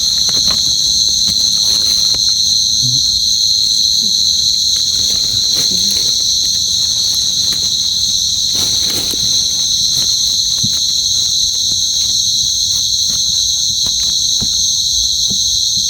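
Steady night-time chorus of crickets, a continuous high trilling at a few fixed pitches, with scattered faint clicks and rustles beneath it.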